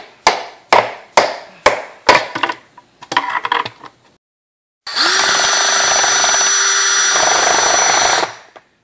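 A hammer striking a nail into the top of a plastic 2-liter bottle, five sharp blows about two a second, then a few lighter taps. About five seconds in, an electric drill runs at a steady speed for about three seconds, drilling sideways into the bottle's neck, then stops.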